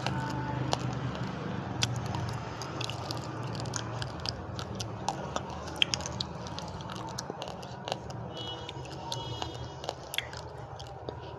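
Uncooked rice grains being chewed, with many small, irregular crunches and cracks as the hard grains break between the teeth.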